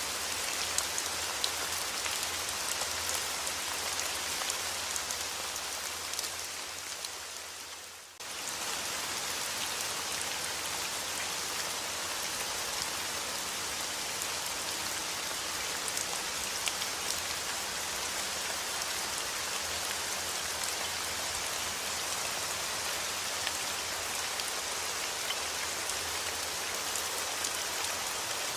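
Steady rain falling on a surface, with many individual drops ticking through the hiss. About eight seconds in, the rain fades down over a couple of seconds and then cuts straight back in at full level.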